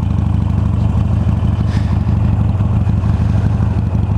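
Harley-Davidson Iron 883's air-cooled V-twin running steadily while riding, its exhaust pulsing evenly.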